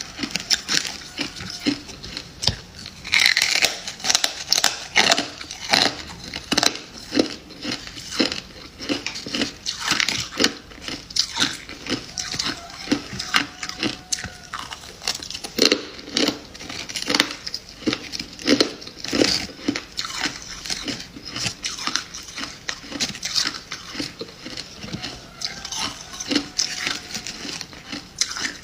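Freezer frost being bitten and chewed close to the microphone: a continuous run of irregular, crisp crunches.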